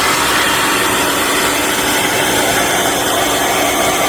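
TEMU 4200 PSI electric pressure washer running, its high-pressure water jet spraying with a loud, steady hiss.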